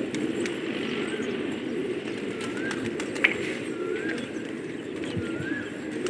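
Flock of gola pigeons cooing, many low coos overlapping without a break. A short high chirp repeats about every second and a half, and a single sharp click comes about three seconds in.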